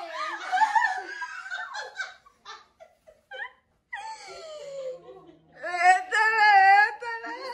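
A woman laughing and giggling nervously, with a long, high-pitched vocal cry about six seconds in.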